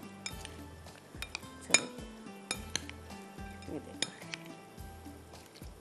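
A spoon clinking against a glass mixing bowl while stirring raw prawns in a wet marinade: irregular sharp clinks, the loudest a little under two seconds in. Background music plays underneath.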